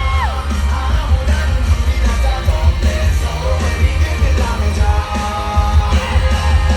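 Loud live concert music through the PA, with a heavy bass beat and singing and yelling over it.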